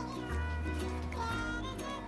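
Background music: a light instrumental tune over a bass line that changes note about once a second.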